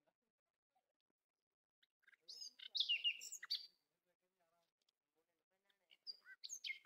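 A bird chirping in two short bouts, one about two seconds in and one near the end, made of quick high notes that fall in pitch.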